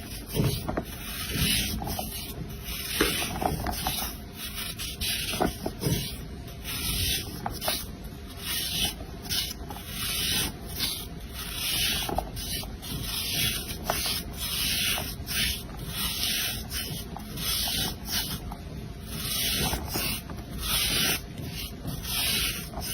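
Kinetic sand being scraped and cut, a run of crunchy rubbing strokes at about one a second.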